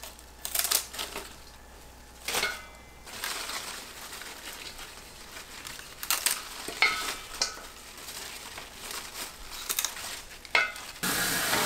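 Small paring knife cutting the roots and stems off bunches of red leaf mustard, with crisp snaps, clicks and crackles as the greens are trimmed and the leaves rustle over a stainless steel bowl. Near the end a tap starts running steadily.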